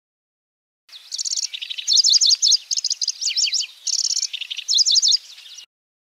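Pallas's grasshopper warbler (kecici belalang) singing: quick phrases of fast, high repeated chips and short trills. The song starts about a second in and cuts off suddenly near the end.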